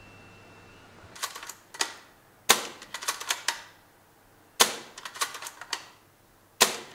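KTW Winchester M70 spring-powered airsoft bolt-action rifle fired three times, about two seconds apart. Each sharp shot is followed by a quick run of clicks as the bolt is worked to re-cock it, and the bolt is also worked once about a second in, before the first shot.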